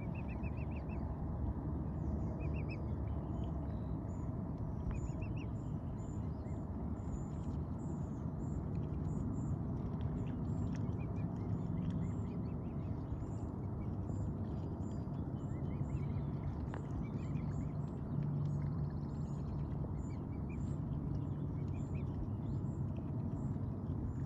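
Mute swan cygnets peeping in short runs of soft, high notes, a few times, over a steady low rumble.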